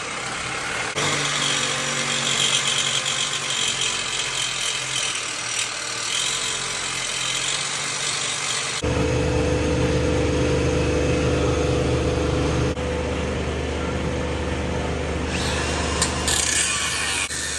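Power tool running steadily, cutting into an exhaust pipe; about nine seconds in its sound changes and a strong low hum comes in.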